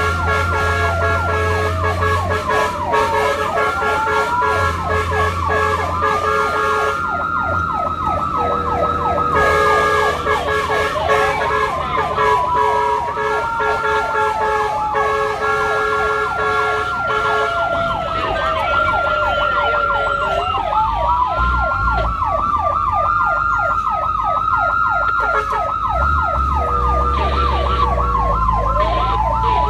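Fire and rescue vehicle sirens sounding continuously, several at once: slow rising-and-falling wails overlap fast repeating yelp sweeps. A low engine rumble sits underneath at the start and again near the end.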